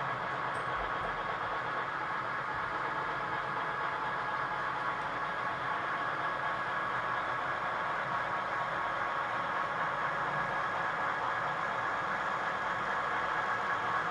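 HO scale model freight train, led by Southern Pacific diesel cab units, running on the layout track: a steady hum and rattle of motors and wheels that grows slightly louder as the train comes closer.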